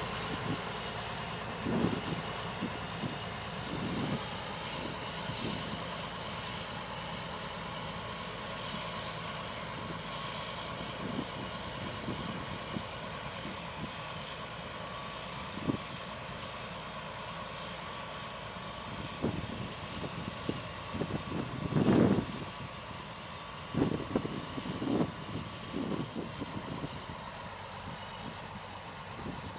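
Large four-wheel-drive tractor's diesel engine running steadily under load as it pulls a tile plow through dry, hard soil. A few short low thumps stand out over the engine sound, the loudest about two-thirds of the way through.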